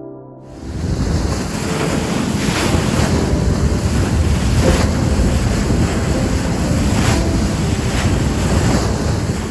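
Wind buffeting the microphone over rushing water on a moving boat: a loud, steady rumbling rush that starts about half a second in.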